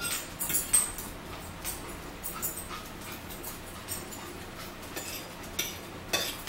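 A pet dog whining, mixed with the short clicks and smacks of people eating with their fingers.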